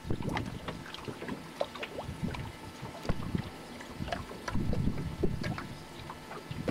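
Small waves lapping and slapping against a fishing boat's hull in irregular little splashes, with wind buffeting the microphone.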